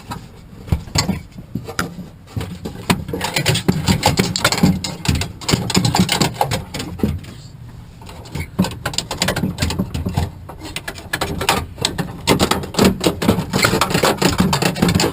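Rear door lock actuator and its rods being worked loose inside a car door: dense, irregular clicking, rattling and scraping of plastic and metal parts, which pauses briefly about halfway through.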